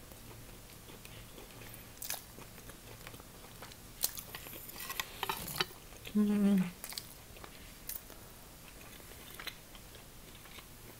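Slurping and chewing of funchoza glass noodles eaten with chopsticks: scattered small mouth sounds, and a run of slurps about four to five and a half seconds in. About six seconds in comes a brief hummed "mmm", the loudest sound.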